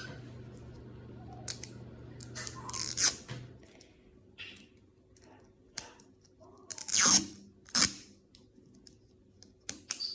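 Plastic packaging of a toy capsule being snipped and torn open: several short, sharp crinkly snips, the loudest about seven seconds in. A low steady hum stops a few seconds in.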